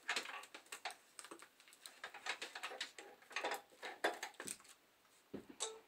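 Plastic dialysis tubing, clamps and line organizer clicking and rattling in irregular clusters as they are handled and clipped onto a peritoneal dialysis cycler, with a dull knock near the end.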